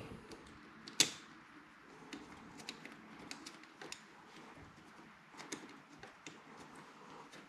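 Faint, scattered clicks and taps of a small screw and fingers against metal parts as a screw is fitted by hand, with one sharper click about a second in.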